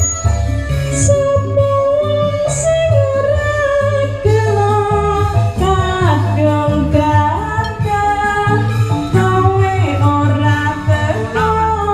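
A song playing: singing over guitar and a steady bass line.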